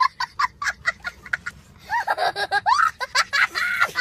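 A young boy laughing hard. Quick bursts of laughter come first, then louder, higher laughs that rise and fall from about halfway.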